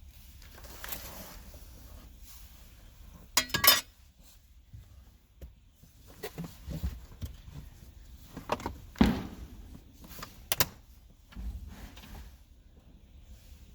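Plastic interior trim of a Mercedes CL63 quarter panel being handled and worked loose: scattered clicks, knocks and rustling, with a short loud squeak about three and a half seconds in and sharper clicks later.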